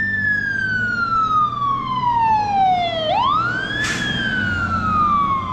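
Ambulance siren in wail mode: a long, slow fall in pitch, a quick rise about three seconds in, then a slow fall again. A short sharp click is heard about four seconds in.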